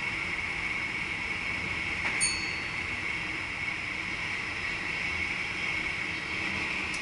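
Steady running noise inside the cab of a VIRM double-deck electric train underway, with a single short, high chime ringing out about two seconds in.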